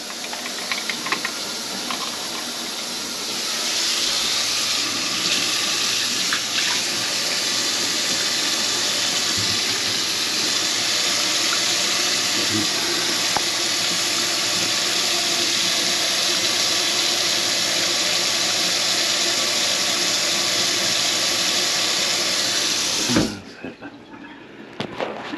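Kitchen sink faucet running steadily into the sink. The flow gets stronger a few seconds in, and the tap is shut off suddenly near the end.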